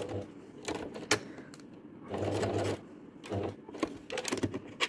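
Electric sewing machine stitching in short stop-and-start runs, a few stitches at a time, while fabric is guided around a curve. Between runs there are scattered clicks of the work and pins being handled.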